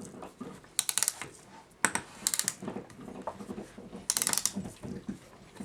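Ratchet click of a Sessions kitchen clock movement clicking in quick runs, about four of them, as the freshly greased mainspring is wound up with the key.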